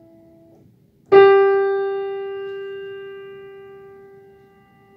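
A single piano note, the G above middle C, struck about a second in and left to ring, fading slowly. Just before it, the last of an earlier E dies away.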